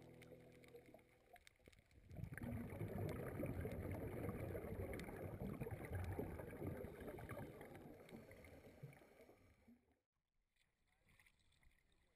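Scuba diver exhaling through a regulator underwater: a long stream of bubbles crackling and burbling past the camera, starting about two seconds in and fading out after about nine seconds.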